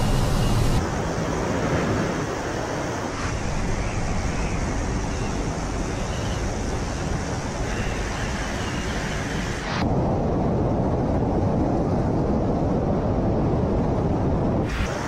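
Steady rushing wind noise of air streaming past the camera in flight, changing abruptly in tone several times: about a second in, about three seconds in, near ten seconds and near the end.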